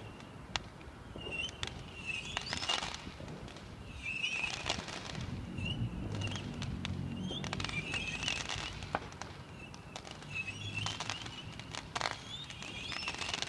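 Distant fireworks going off across the city: scattered sharp bangs and pops, with bursts of high chirping crackle about a second long every few seconds, over a low rumble.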